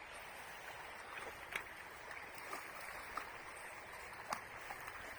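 Faint, steady running of stream water, with a few short sharp clicks or splashes over it.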